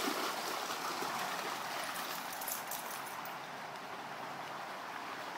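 Shallow creek water rushing steadily over rocky riffles, with a few faint brief splashes about two to three seconds in.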